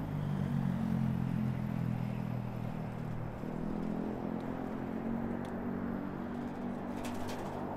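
Motor vehicle engine running close by in city street traffic, loudest in the first couple of seconds, with a short clatter near the end.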